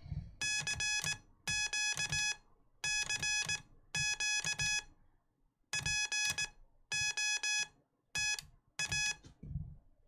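Hand-keyed Morse code (CW) sidetone from a paddle: one steady beeping tone broken into dots and dashes, sent as about eight character groups with pauses between. It is a CQ call that listeners copy as "CQ POTA".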